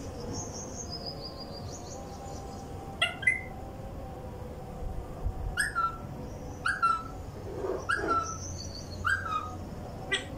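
Caged parakeets chirping: a soft high warbling trill at first, then a run of short, sharp calls that drop in pitch, about one a second.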